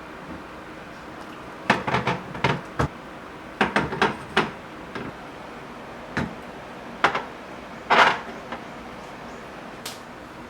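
Food containers being handled and set down: a series of sharp clacks and knocks in irregular clusters, the loudest about eight seconds in.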